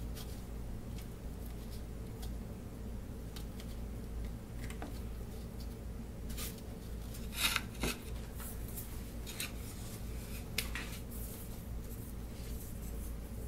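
Scattered light clicks and scrapes of small wooden parts being handled on a workbench, with a louder clatter about seven and a half seconds in, over a steady low hum.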